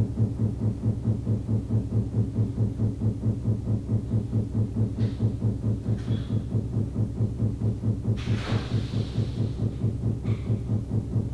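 Rapid, steady banging coming through a wall, a low throbbing pulse about four beats a second. A brief hiss passes over it near the end.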